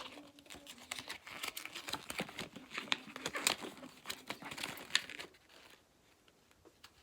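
Paper instruction leaflet being unfolded and handled: a run of rustling and crinkling with small clicks that dies down about five seconds in.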